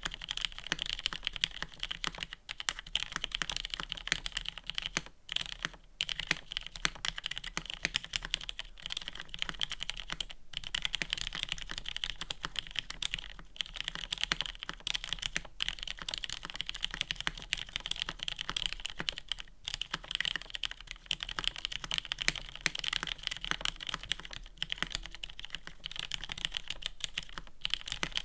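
Steady, fast typing on a gasket-mounted Exclusive E8.5 mechanical keyboard with a polycarbonate plate, lubed and filmed Cherry MX Black linear switches and GMK keycaps. It is a dense run of keystrokes with a few brief pauses.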